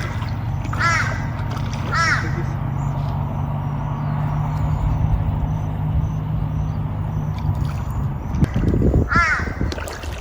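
A crow cawing: single harsh calls about a second apart, three near the start and one more near the end, over a steady low hum. A brief rush of noise comes shortly before the last call.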